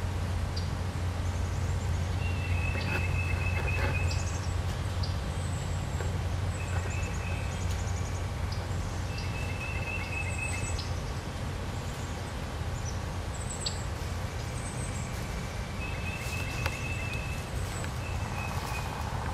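Woodland songbirds calling, with short high chirps and a few thin, level notes about a second long, over a steady low rumble.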